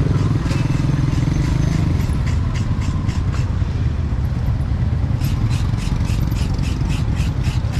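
Busy market street: a motorbike engine running close by, its steady hum easing after about two seconds. A quick run of taps, about four or five a second, comes in over the second half.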